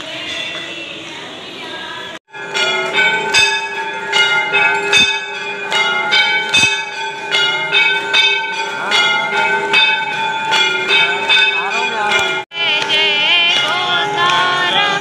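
Temple bells rung rapidly and without pause for the aarti, quick repeated strikes over a steady ringing. The bells come in abruptly about two seconds in and break off suddenly near the end, where singing voices take over.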